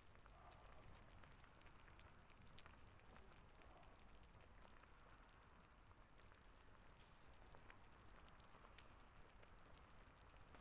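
Near silence: a soft hiss with faint, scattered light ticks throughout.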